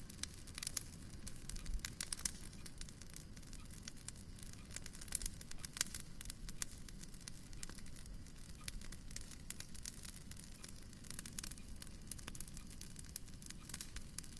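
Wood fire crackling in a fireplace: irregular small pops and snaps over a steady low rumble.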